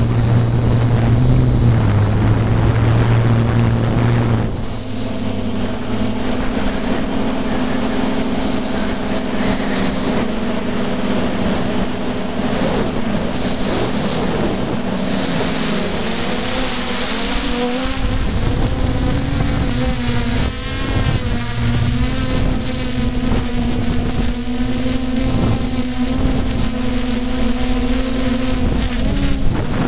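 Electric motors and propellers of a small radio-controlled camera drone running, a steady buzz with a high whine whose pitch shifts now and then as it manoeuvres.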